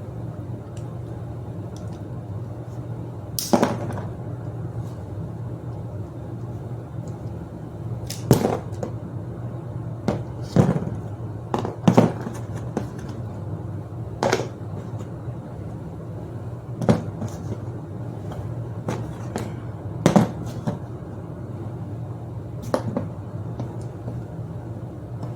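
Scattered sharp clicks and knocks of tools and bicycle parts being handled during work on a rear derailleur, about a dozen in all at irregular intervals, over a steady low hum.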